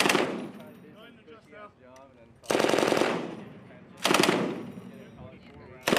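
M240B 7.62 mm belt-fed machine gun firing short bursts of automatic fire: three bursts, each under a second, with a fourth starting at the very end. Each burst dies away over about a second.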